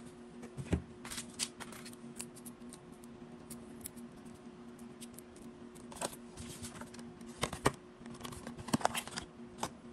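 Hands handling unboxing packaging: a cloth drawstring pouch, a cable in a clear tie and a folded card sleeve holding a cable. The handling makes scattered sharp clicks and paper crinkles, the loudest ones about three quarters of the way through. A steady low hum runs underneath.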